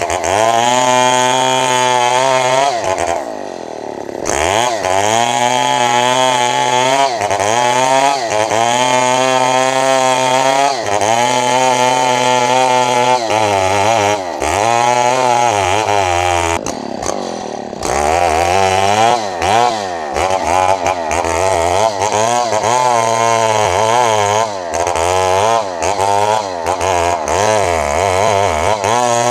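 Long-bar chainsaw running at high revs, its engine pitch sagging and recovering over and over as it bites into wood under load. It drops to a lower speed about three seconds in and again around sixteen seconds, then revs back up.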